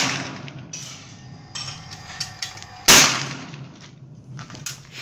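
Investarm .410 over-under shotgun firing Fiocchi .410 shells at clays: the echo of a shot fired just before fades out at the start, and a second sharp shot cracks about three seconds in, trailing a long fading echo. A few light clicks follow near the end.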